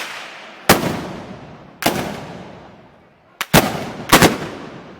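Black-powder blunderbuss (arcabuz) shots of the Moros y Cristianos arcabucería: about five loud bangs at uneven intervals, the last few coming close together, each with a long echo that dies away.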